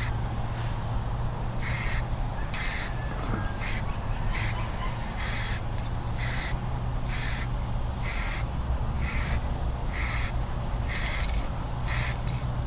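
Repeated short hissing bursts of spray paint, about one a second, laying a black textured coat, over a steady low hum.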